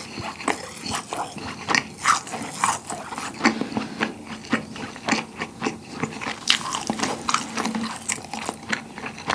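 Close-miked chewing of a rasgulla, a soft syrup-soaked cheese ball: many irregular mouth smacks and clicks.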